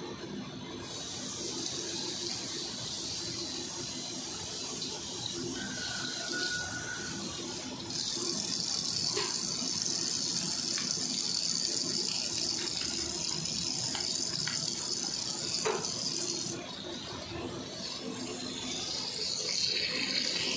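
Tap water running into a stainless steel sink as a bottle is rinsed under the stream. The flow starts about a second in, grows louder around the middle, dips for a couple of seconds, then picks up again near the end.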